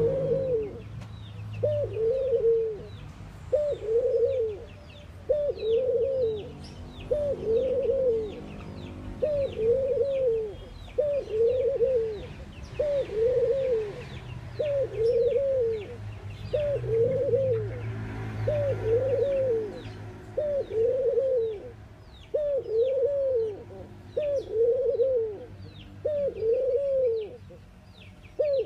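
Collared dove cooing: a single low coo, rising then falling, repeated steadily about every one and a half seconds. Small birds chirp faintly in the background.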